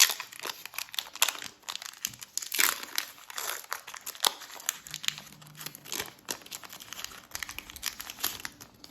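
Foil wrapper of a Pokémon 151 booster pack crinkling as it is handled and torn open: a dense run of irregular crackles, with a sharp loud one at the very start.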